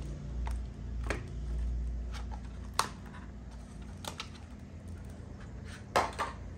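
Thin clear plastic chocolate mold crackling and clicking as it is pressed and flexed to release the set chocolate shells. A scatter of sharp clicks, the loudest pair near the end as the shells come free.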